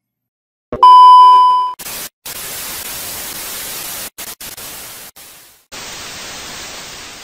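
TV test-pattern sound effect: after a click, a loud steady beep for about a second, then television static hiss that cuts out briefly a few times.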